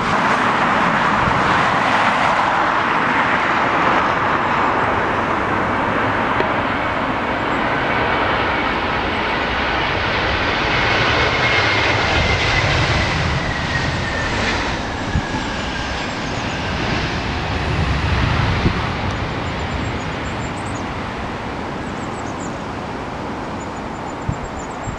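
Jet airliner engines at takeoff power: a steady roar with a high whine that slides slightly lower about halfway through, easing off a little near the end.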